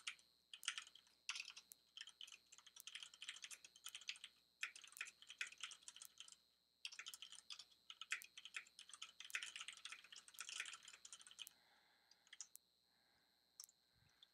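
Typing on a computer keyboard: quick runs of key clicks with short pauses, slowing to a few single key presses near the end.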